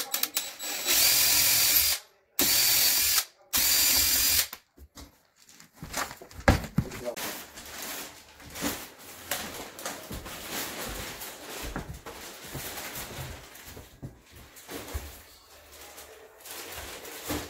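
Cordless drill boring a hole through a painted cabinet panel in three short bursts over the first four seconds or so. Quieter knocks and handling clatter follow.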